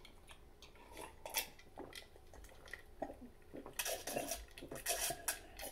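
A person drinking from a glass in gulps, with faint clicks; the gulps come thicker and louder in the last couple of seconds.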